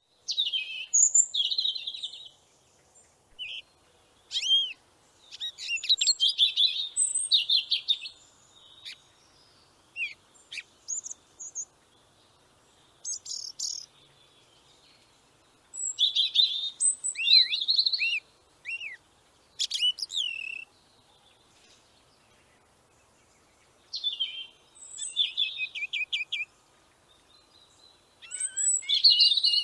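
Birds singing in short, high-pitched phrases of chirps and trills, with gaps of a second or two between phrases.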